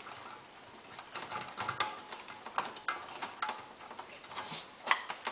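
Small plastic and metal clicks, taps and scrapes as the CRT socket board is pushed back onto the picture tube's neck and the TV chassis and its cables are handled. A couple of louder clicks come about five seconds in.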